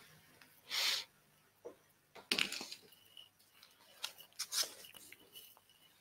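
Quiet scattered clicks and a short hiss close to a microphone, with a faint high whine coming and going.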